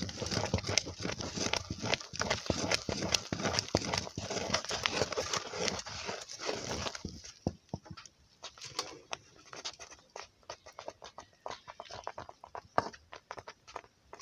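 Wooden fufu turning stick stirring and pounding thick dough in an aluminium pot: a rapid run of knocks and thuds of wood on dough and pot rim. About seven seconds in the strokes thin out to scattered, quieter knocks.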